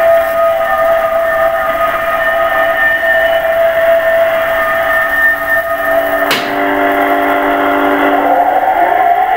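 Air-raid siren transmitted on 6911 kHz shortwave, heard through a communications receiver in upper sideband: a steady wail of several tones together, a click about six seconds in, lower tones, then the pitch rising near the end.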